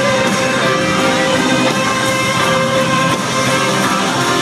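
A live band playing amplified music with guitars, heard from the audience in a large arena.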